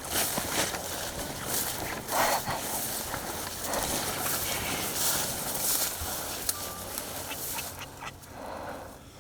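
Irregular footsteps and rustling in ground cover, close by.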